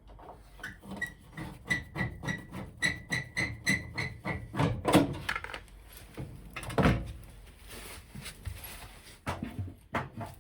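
Hand tools working on a commercial washing machine's front panel: a run of quick, even clicks for about four seconds as a screw is worked out, then two loud thunks and a few lighter knocks as the panel is prised loose and popped off.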